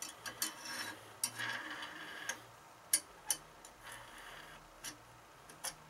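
Light metal-on-metal clicks, about ten at irregular spacing, with a soft scrape about a second in, as an AR-15 gas tube is fed through a free-float handguard and the gas block slid onto the barrel.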